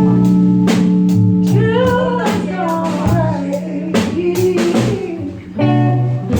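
Live band jamming: a guitar plays a bending lead line over held bass notes and a drum kit keeping a steady beat.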